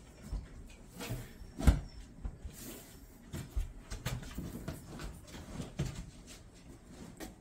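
Scattered knocks, taps and scuffs of a shower base being pressed down and shifted as it is set into its mortar bed, with one sharper knock a little under two seconds in.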